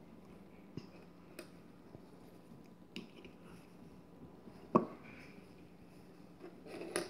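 A few light plastic clicks and taps as popsicle-stick caps are pushed down into a plastic popsicle mold, the loudest a sharp click just under five seconds in.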